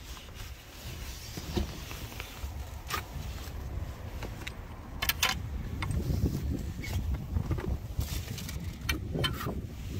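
Footsteps on a paved path, with sharp clacks and jingles of carried gear now and then, over a low rumble of wind on the microphone.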